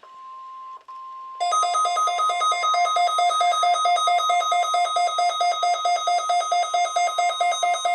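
NOAA Weather Radio's steady 1050 Hz warning alarm tone, sounded as part of the required weekly test. About a second and a half in, a weather radio receiver's alert joins it: a loud, rapid electronic beeping set off by the tone, which runs on under the steady tone.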